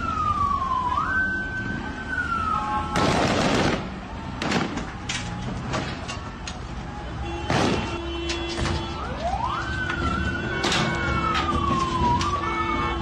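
Vehicle siren wailing: it climbs quickly to a high pitch, holds, then slides slowly down, once at the start and again from about nine seconds in. In between, a loud rushing burst about three seconds in is followed by several sharp bangs over street and crowd noise, and a steady low drone comes in about seven seconds in.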